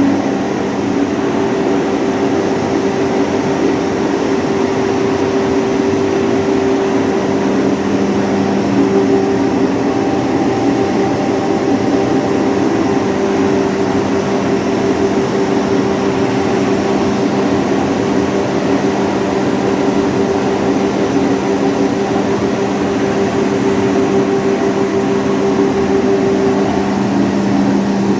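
55 kW hammer mill plant running: the mill and its blowers make a loud, steady machine drone with an even hum. One hum tone grows stronger partway through and another fades near the end.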